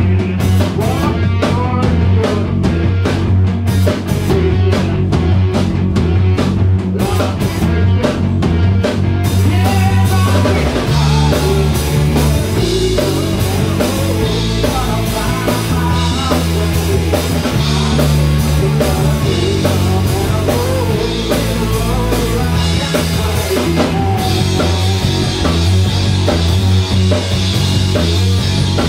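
Rock band rehearsing loud: drum kit, electric bass and electric guitar playing a rock song together. For about the first nine seconds the drums hit in a clear, spaced rhythm, then the playing thickens into a dense full-band wash of cymbals and distorted guitar.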